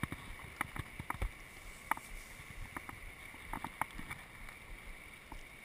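Small scattered splashes and sloshing in shallow water as a hooked rainbow trout thrashes at the surface beside a wading angler's legs, over a faint steady hiss.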